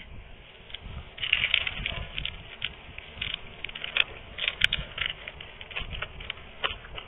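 Close-up mouth sounds of someone eating crispy chicharon bulaklak (deep-fried pork intestine): irregular crunchy cracks as the crackling is bitten and chewed, over a low chewing rumble.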